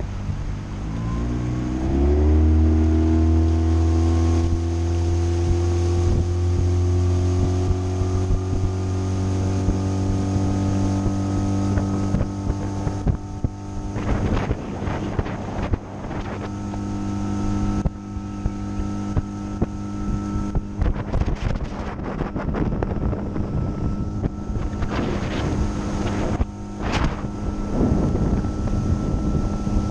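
Outboard motor of a small fishing boat throttling up, its pitch rising over the first couple of seconds, then running steadily at speed. Short bursts of wind on the microphone come through now and then.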